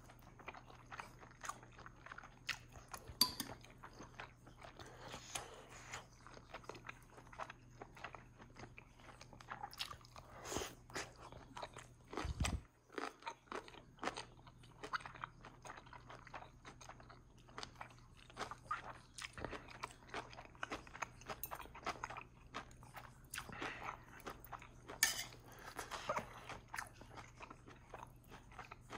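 Close-miked eating: continuous chewing with many small crisp clicks and crunches. A single low thump about twelve seconds in.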